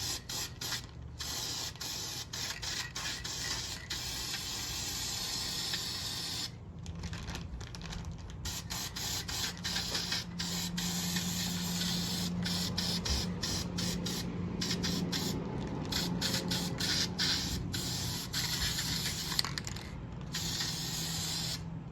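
Aerosol air filter oil being sprayed onto a dirt bike's air filter: a hiss in many bursts of varying length, broken by short pauses.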